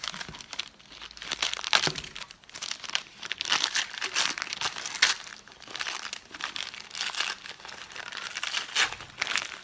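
Christmas wrapping paper crinkling and tearing as a small wrapped gift is opened by hand: a rapid, irregular run of rustles and rips, with one sharper crackle about halfway through.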